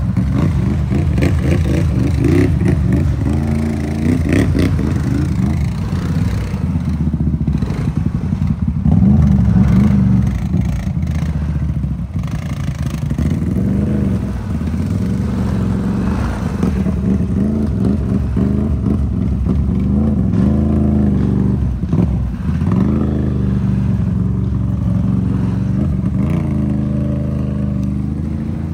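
Off-road vehicle engine running under way, its pitch repeatedly climbing and dropping as it revs up and eases off.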